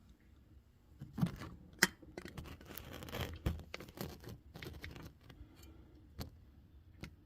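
Irregular metal clicks, knocks and scraping as a new front strut is worked up into position against its mounts and the lower control arm, with one sharp click a little under two seconds in.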